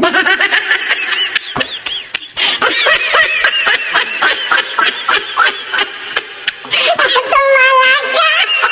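High-pitched, rapid giggling laughter that cuts in suddenly and runs on as quick repeated giggles, like a sped-up cartoon laugh sound effect.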